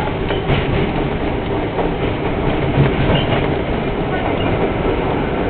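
R42 subway train running along elevated track, heard from inside the front car: a steady rumble of wheels on rail and motors, with a few faint clicks.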